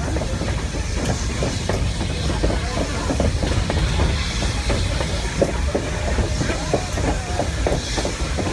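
Passenger train on the Strasburg Rail Road rolling along, heard from aboard a coach: a steady low rumble with irregular clattering of the wheels and car running gear over the track.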